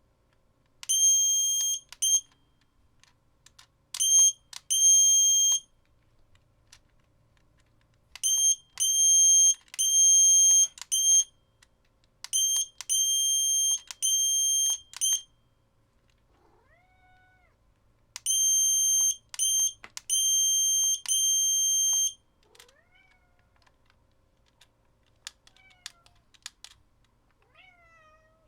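Morse code sent as a high-pitched electronic beep: long and short tones in five groups with pauses between them. In the gaps near the end a cat meows a few times, with some faint clicks.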